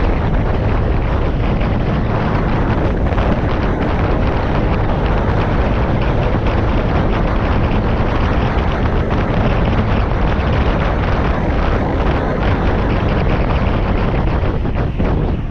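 Steady, loud wind rush buffeting the microphone on a moving scooter, with the Honda PCX 125's single-cylinder four-stroke engine running underneath at a steady road speed.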